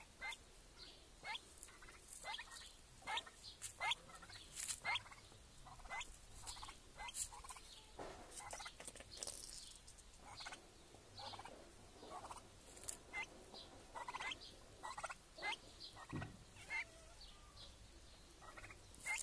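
Bird calls, likely poultry: a long, irregular string of short, sharp calls, one to a few a second.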